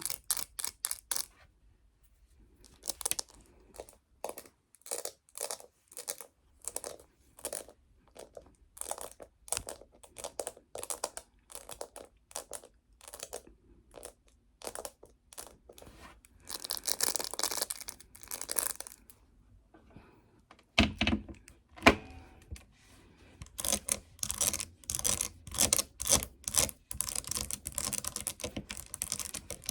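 Tapping on a phone case: separate crisp taps two or three a second, a longer scratchy rustle about seventeen seconds in, a couple of heavier knocks around twenty-one seconds, then quicker, denser tapping.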